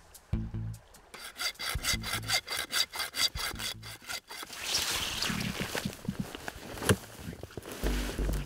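Hand saw cutting in quick, even strokes, then a longer stretch of rubbing and rustling.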